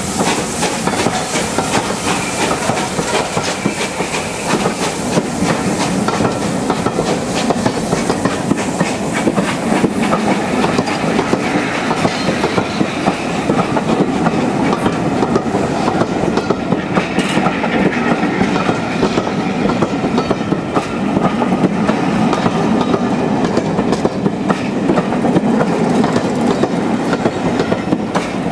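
Railway passenger coaches rolling past, their wheels clattering over the rail joints in a steady run of clicks over a continuous rumble.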